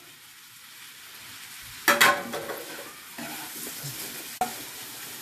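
Vegetables sizzling in hot oil in a pan on a gas burner, with a sudden louder burst of sizzling about two seconds in that dies away. A spatula stirs and clicks against the pan near the end.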